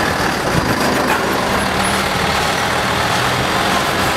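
Fire engine (a medium fire pump truck) driving past and away, its diesel engine running steadily under load.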